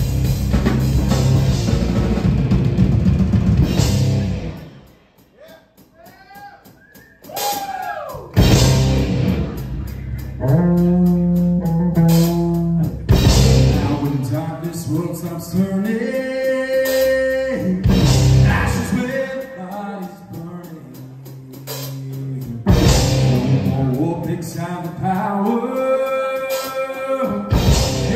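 Live rock band with electric guitars and a drum kit playing a heavy instrumental passage. About four and a half seconds in the band drops out, leaving only a few sliding, bending guitar notes, then crashes back in and keeps on with long held guitar notes punctuated by big hits every few seconds.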